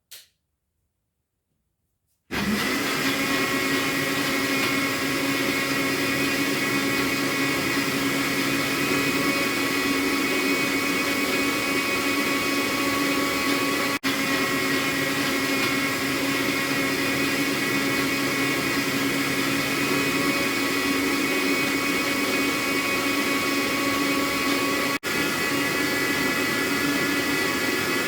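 Electric blender switched on about two seconds in and running steadily at speed, blending sliced turmeric, ginger and garlic into juice.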